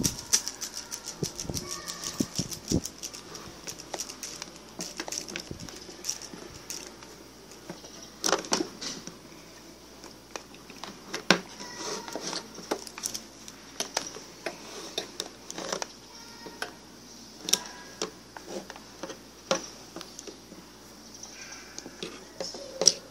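Irregular sharp clicks and knocks over a steady high-pitched hiss, with faint voices in the background.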